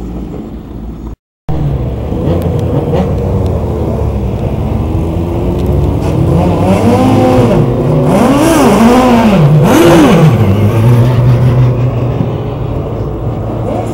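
Race car engines idling, with one engine blipped several times in quick succession between about seven and ten seconds in, pitch rising and falling with each blip, before settling back to a steady idle.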